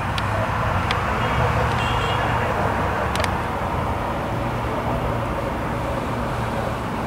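Steady hum of distant city traffic from the roads below, with a few faint clicks.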